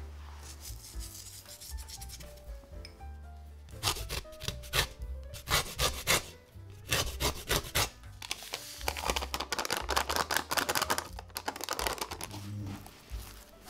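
Lemon rind grated on a fine rasp grater: a run of quick rasping strokes, about three a second, from a few seconds in. Then vanilla sugar is shaken from a paper sachet with a softer rustling hiss, over quiet background music.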